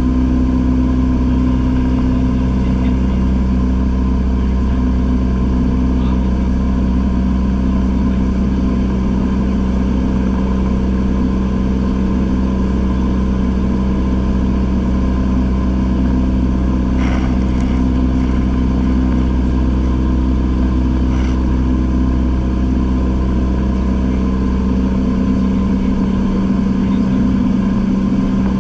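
Steady drone of a single-engine light plane's piston engine and propeller in cruise flight, heard inside the cockpit. Its tone shifts slightly near the end.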